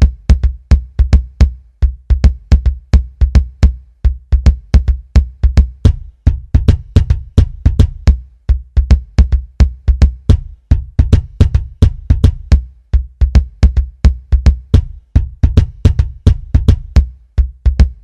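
Electronic music: a drum-machine beat of heavy kick drums and sharp clicking hits in a steady, fast pulse, with no melody over it.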